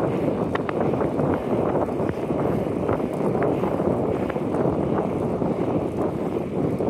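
Wind rushing over the microphone of a camera on a moving bicycle, a steady dense buffeting rumble at cycling speed.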